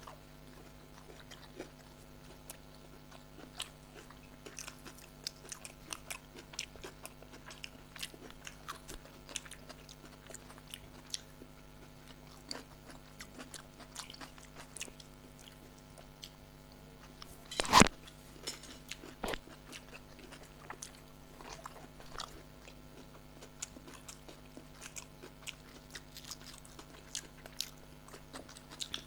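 Close-miked eating: chewing and biting with many small irregular clicks. One loud sharp sound stands out about 18 seconds in, with a smaller one just after.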